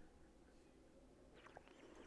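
Near silence, then about a second and a half in, faint soft sounds begin as someone starts drinking guava nectar.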